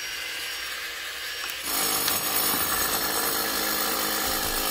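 Screwdriver tip scraping and gouging into a termite-eaten wooden window jamb, the soft, hollowed wood crumbling as it is dug out. The scraping gets louder and denser about a second and a half in.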